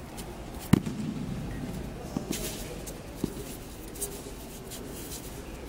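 Aikido throws and breakfalls on judo mats: a sharp slap of a body landing about three-quarters of a second in, then a few lighter thuds and knocks, over a murmur of voices.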